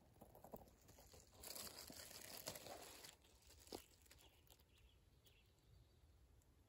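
Faint rustling and crinkling of dry leaf litter for about a second and a half, starting about a second and a half in, with a few small clicks.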